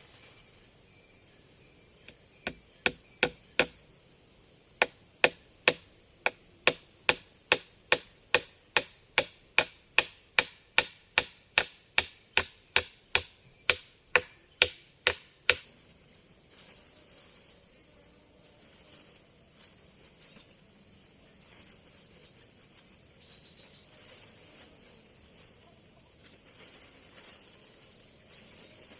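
Repeated sharp blows of a tool striking wood, as in chopping or hammering: a short group of four, a brief pause, then a steady run of about two blows a second that stops abruptly about halfway through. Insects trill steadily throughout.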